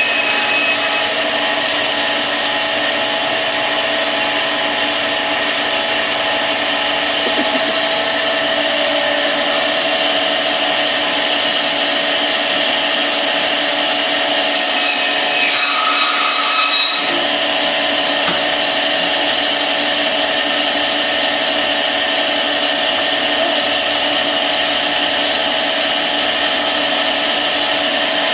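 Band saw running steadily while its blade cuts through pork chops: a constant motor hum under a rasping saw noise. The sound changes briefly about halfway through, then settles back into the same steady run.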